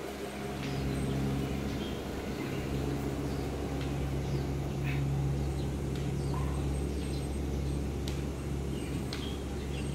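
Outdoor ambience: a steady low hum, with short bird chirps scattered through it.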